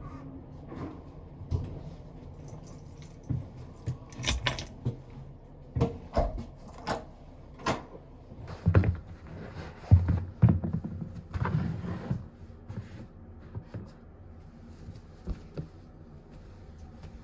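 Keys jangling, with irregular clicks and knocks like a door being unlocked and handled; the knocks are loudest through the middle.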